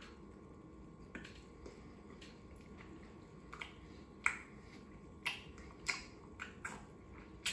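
Lip smacks and tongue clicks of a person tasting a mouthful of baby food: a string of short wet clicks at an irregular pace, a few louder ones from about four seconds in.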